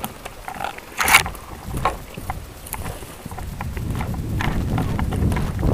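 Footsteps hurrying over a forest floor of dry twigs and needles, with clothing and gear rustling and low rumble from movement on a helmet-mounted microphone; a sharp crack about a second in.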